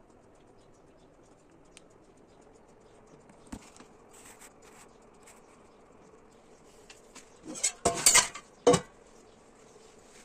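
Dishes and cutlery clinking and knocking as they are handled, with scattered light clicks and a few loud clatters close together about three quarters of the way through.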